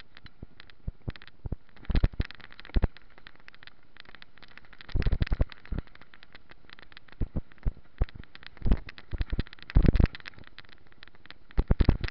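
Mountain bike ridden over a rough dirt trail: irregular bursts of sharp rattles and knocks as it hits bumps, over a steady faint rush of tyres and wind.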